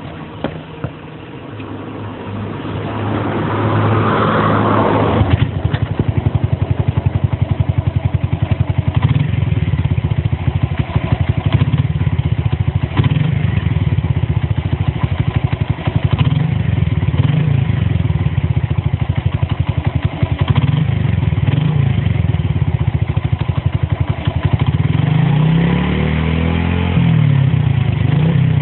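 Honda Benly CD50's single-cylinder four-stroke engine running through an all-stainless T&R aftermarket muffler with its silencer baffle fitted, idling with a steady, rapid putter. It gets louder over the first few seconds, and a few throttle blips raise and drop the revs near the end.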